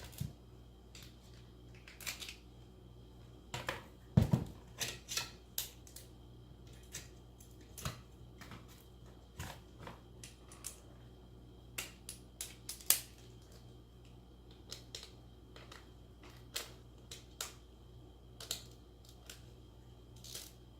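Irregular metallic clicks, clinks and small knocks of hand tools and loose parts while an engine cylinder head is being unbolted and stripped, with one louder knock about four seconds in.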